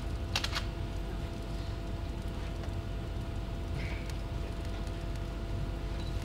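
Room tone in a presentation hall: a steady electrical hum with low rumble, and a couple of faint clicks about half a second in.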